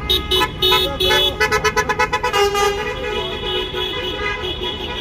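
Car horns honked by passing motorists in protest against the ULEZ scheme. They give a string of short toots, with a rapid burst of quick toots about a second and a half in, then longer, steadier blasts mixed with voices.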